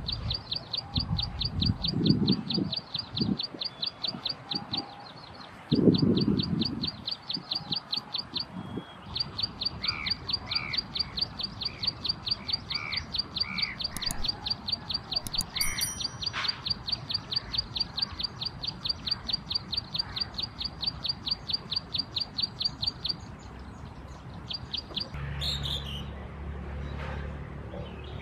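Plain prinia singing: long runs of one high, buzzy note repeated rapidly at about five notes a second, broken by short pauses. The song stops about 23 seconds in, with one brief burst a couple of seconds later. There are low thumps about two and six seconds in.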